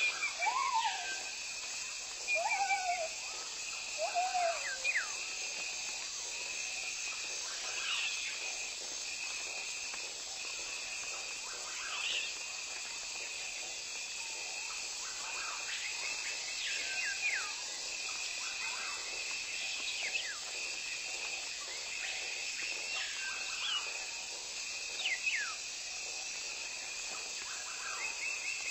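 Forest ambience: a steady, high insect drone runs throughout, with short, sharp bird calls every second or two. In the first five seconds a few lower, looping calls are mixed in.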